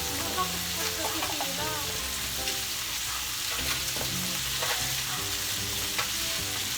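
Sliced pork belly sizzling steadily on a tabletop grill, with a few light clicks scattered through.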